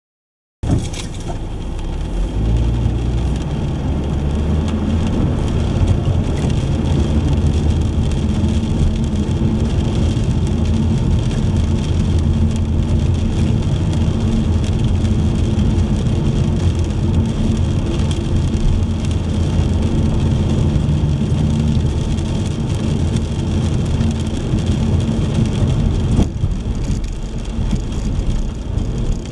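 A car driving on rain-wet roads: a steady low rumble from the road and engine, with an even hiss of rain. It starts abruptly about half a second in.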